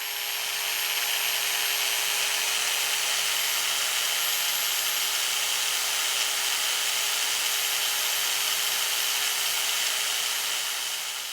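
Electric drill-type motor running at a steady speed with a constant whine, spinning the drive of a Smiths chronometric speedometer under test.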